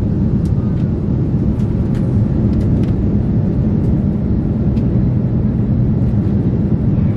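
Steady cabin noise inside an Airbus A330-300 in climb: the low rumble of the engines and airflow over the fuselage, with a few faint ticks.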